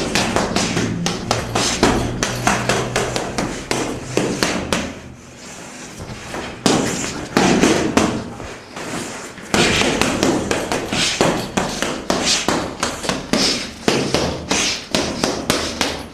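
Gloved punches landing on boxing gear in quick, irregular strings of sharp hits, several a second, easing off briefly about five seconds in before picking up again.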